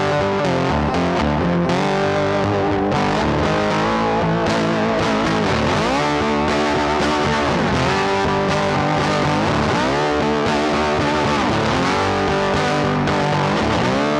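Background music led by distorted electric guitar, with sustained and bending notes.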